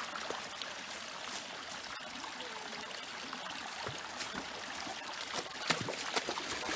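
Small rocky woodland creek trickling and running under a log footbridge, with a few sharp clicks near the end.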